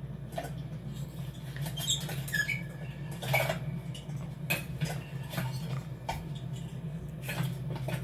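Animated-film sound effects: a steady low machine hum under scattered clicks, knocks and a few brief high squeaks.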